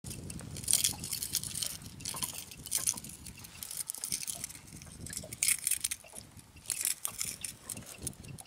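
Wind rumbling on the microphone, with irregular crackling and rustling from handling.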